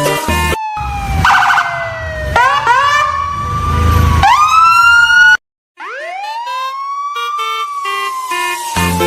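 A siren wailing in slow falling and rising glides over background music, cutting out completely for a moment about five seconds in.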